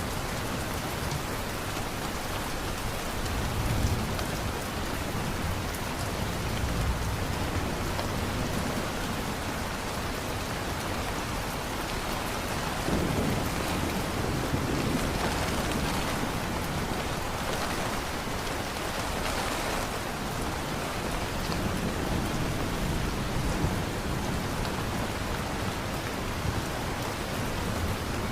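Heavy, steady rain falling in a thunderstorm, with low rolls of thunder rumbling in three times: a few seconds in, around the middle, and again later on.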